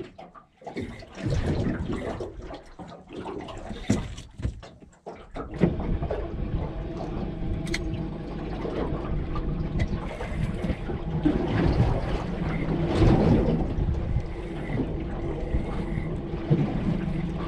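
Water and wind noise on a small boat. The sound is choppy for the first few seconds, then turns into a steadier, fuller noise about five seconds in.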